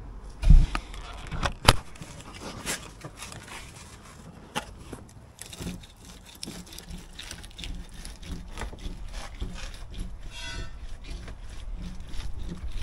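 Steel pry bar levering bricks out of a wall joint: irregular knocks, scrapes and cracks of hard brick and mortar giving way, with two heavier knocks in the first couple of seconds and a brief squeal about two seconds before the end.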